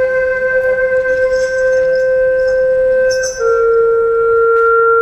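Vietnamese bamboo transverse flute (sáo) playing solo: one long held note, then a step down to a slightly lower held note about three seconds in.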